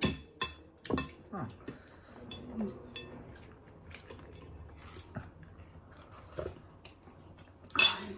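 Forks clicking and scraping against plates while two people eat and chew. There are scattered sharp clinks, the loudest near the end.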